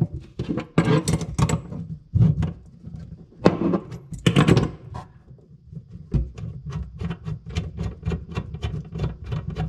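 Pliers working loose the threaded nut of a hot-water flexible supply hose under a sink: a few metal knocks and scrapes, then a quick run of even clicks, about four a second, in the second half.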